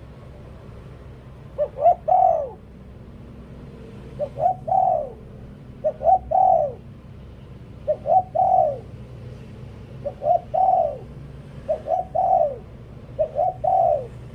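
Spotted dove cooing in the style Thai keepers call 'liu tan': seven repeated phrases, each two or three quick short notes leading into a longer falling coo, about every two seconds, starting about one and a half seconds in.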